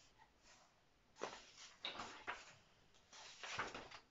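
Faint paper rustling as pages of a thick book are turned by hand, in several short bursts.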